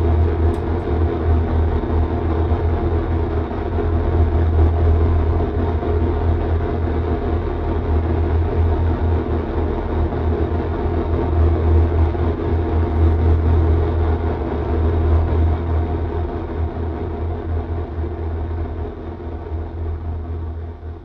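Heavy, steady electronic noise drone with a deep low rumble, from a live noise-and-electronics performance, slowly fading out over the last few seconds.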